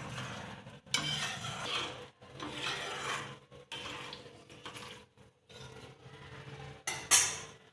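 A metal spoon scraping and stirring in a pot of liquid curry, in uneven strokes with short pauses. There is a brief louder hiss near the end.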